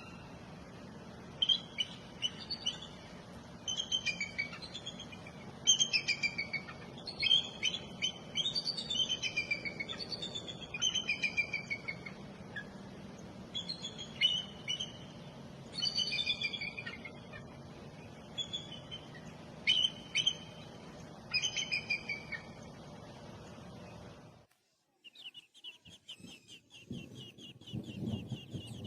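A songbird singing, short phrases of falling whistled notes repeated every second or two over a steady low hum. About 24 seconds in the recording cuts to a different one: a fast, even high trill with low calls beneath it.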